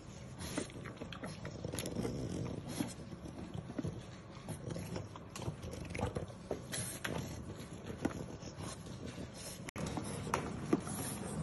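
French bulldog puppies eating from plastic bowls: irregular small clicks and crunches of kibble and bowl, with the dogs' breathing.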